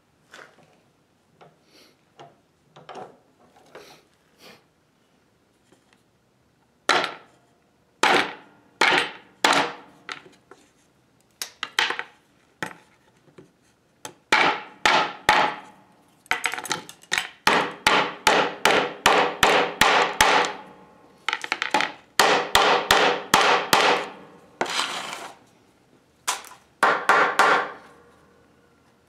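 Hammer blows on steel hook lacing, driving the hooks into the end of a leather flat belt laid on a steel surface. A few light taps come first. From about seven seconds in come sharp strikes, which become a rapid run of blows, two or three a second, in the second half.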